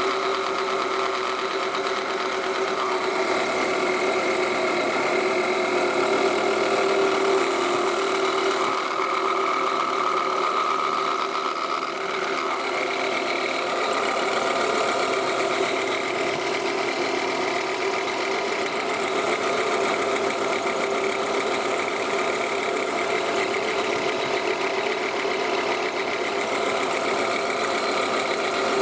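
Toyota Estima engine idling with the engine bay open, carrying a steady rattling growl from the alternator: the sound of a worn alternator bearing.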